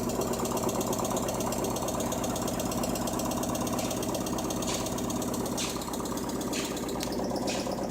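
LG washing machine running with a steady motor hum and a fast rattling flutter. From about halfway through, a short swish comes roughly once a second.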